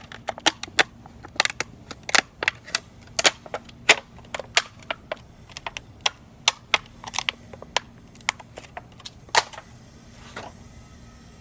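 Thin disposable plastic cup being squeezed and turned over in the hands, giving an irregular run of sharp plastic clicks and crackles, a few a second, that thins out near the end.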